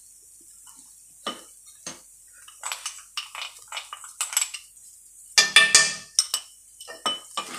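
A stainless-steel slotted spoon scraping and clinking against a metal kadhai as a thick rice-flour dough is stirred. The strokes come in irregular bursts, starting about a second in and loudest about two-thirds of the way through.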